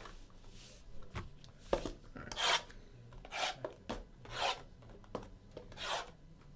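Repeated short rasping, rubbing strokes, roughly one a second, from trading-card packaging and cards being handled and opened by hand.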